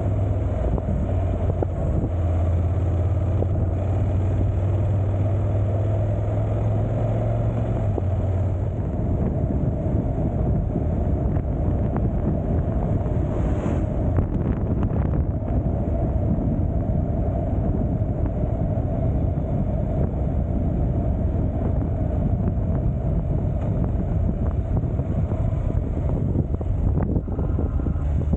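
Motorcycle riding on the road, its engine running under steady wind noise on the microphone. A low engine hum holds steady for about the first eight seconds, then gives way to a broader rumble.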